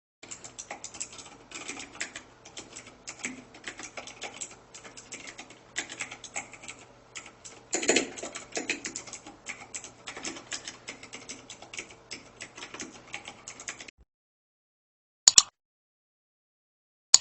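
Typing on a mechanical keyboard with full-aluminum keycaps: quick, irregular key clacks for about fourteen seconds. Then a pause and two single sharp clacks near the end.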